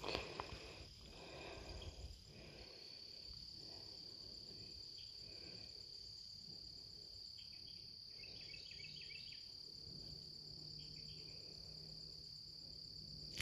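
Faint, steady, high-pitched trilling of insects in the grass, with a short run of quick chirps about halfway through.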